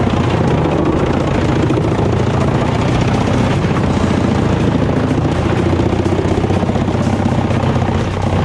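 Heavy machine's engine running steadily, a dense, even drone that does not change.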